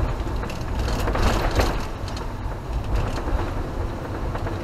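Motorhome driving along a wet road, heard from inside the cab: a steady low engine and road rumble with tyre noise from the wet surface, small rattles, and a louder swell about a second in.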